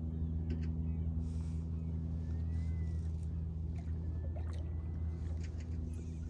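A steady low motor hum, with a few faint high chirps gliding up and down now and then.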